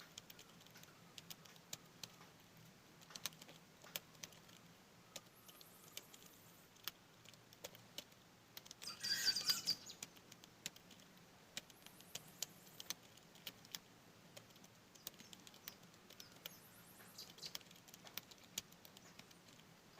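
Computer keyboard keys clicking in slow, uneven keystrokes: a beginner working through home-row typing drills. Birds chirp faintly, most clearly about nine seconds in.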